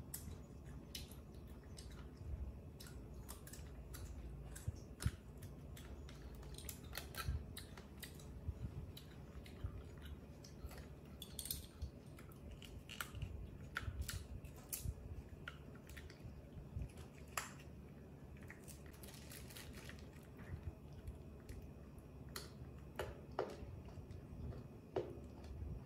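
Baby macaque biting and chewing slices of crisp green fruit: irregular small crunches and clicks scattered throughout, over a faint low room hum.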